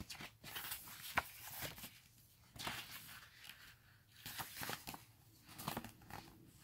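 Paper pages of an album photo book being handled and turned, in about four short rustling bursts.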